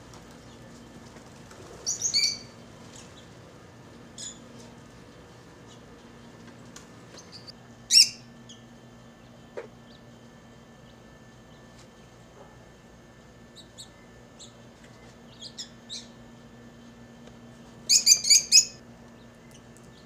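Pet lovebirds giving short, high-pitched chirps in scattered bursts: a quick cluster about two seconds in, a single loud chirp near the middle, and a rapid run of chirps near the end, over a faint steady low hum.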